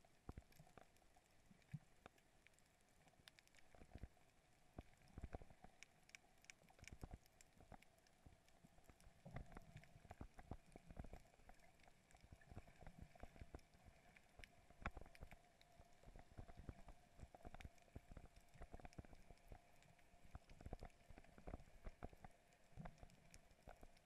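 Faint underwater ambience through a GoPro's waterproof housing: scattered irregular clicks and crackles over a faint steady hum.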